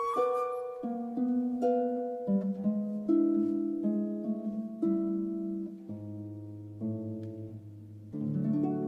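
Instrumental background music: a gentle melody of plucked string notes, one after another, with a lower note coming in about six seconds in.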